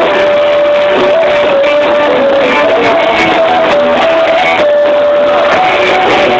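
Live band playing rock music loudly with electric guitars, a melody line of long held notes stepping up and down over the band.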